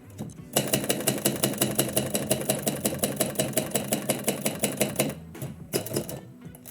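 Typewriter keys striking in a fast, even run of about eight keystrokes a second, with a few separate strikes after it near the end.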